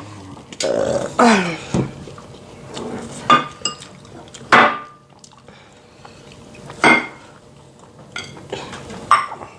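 Plates and cutlery clinking and clattering during a meal, about six separate knocks spread through.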